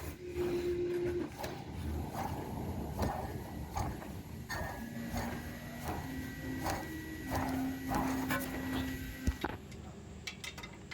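Hand tools working on metal under a car's hood: a string of clicks and clinks, with a few steady held tones at shifting pitches through the middle that end abruptly a little before the end.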